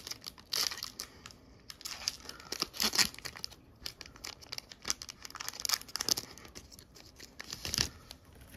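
Foil-wrapped Pokémon Lost Origin booster pack being crinkled and torn open, irregular crackling rustles with a few sharper rips.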